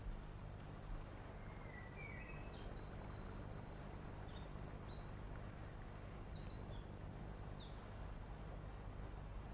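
A songbird singing a run of quick, high chirps and trills lasting several seconds, over a steady low hum and hiss.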